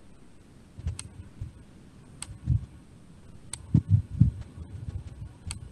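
Soft low thumps and a few faint sharp clicks at uneven intervals, from desk and mouse handling while drawing on a digital whiteboard. The thumps come closest together a little before the end.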